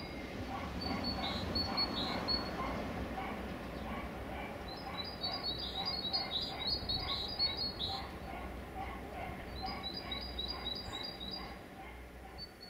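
A small songbird singing short phrases of quickly repeated high notes, three phrases in all, over a low steady rumble in the background.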